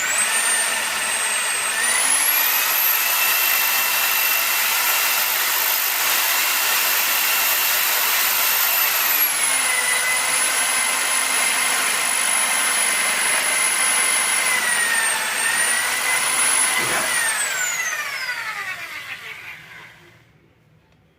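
Bosch GSB 500RE corded electric drill's motor running with a high whine: it speeds up in the first couple of seconds, holds, drops to a lower speed about halfway, dips briefly, then winds down as the trigger is released and fades out.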